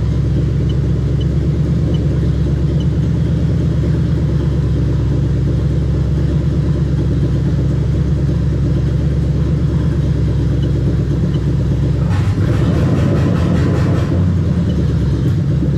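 Toyota 1UZ-FE VVT-i 4.0-litre V8 running steadily with no exhaust fitted, loud, freshly started on a newly adapted engine harness. Its note shifts briefly, with a harsher stretch, about twelve seconds in.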